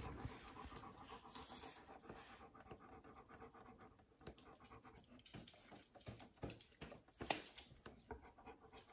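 A large dog panting softly. There are a few light knocks and a sharper knock about seven seconds in.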